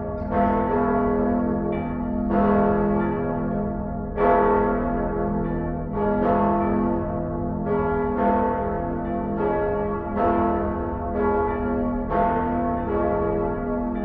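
Church bells ringing, struck about once a second, each note ringing on into the next, over a low steady rumble.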